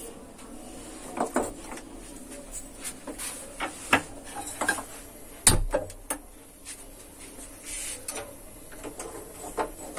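Scattered light clicks and knocks of kitchen things being handled on a stovetop counter, with one louder knock and thud about five and a half seconds in.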